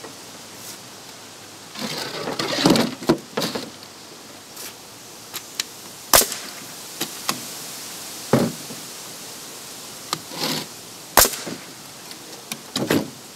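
Bostitch pneumatic framing nailer firing twice, two sharp bangs about five seconds apart, driving nails through a wooden board into a concrete block. Smaller knocks and rustles of the board and nailer being handled come in between.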